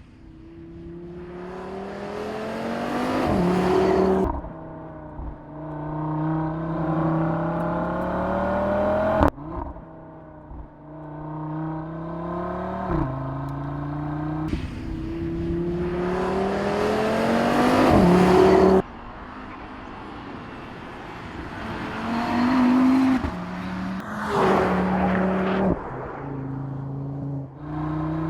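Audi RS 3 Performance Edition's turbocharged five-cylinder engine revving under acceleration. Its pitch climbs steadily, then falls away sharply several times.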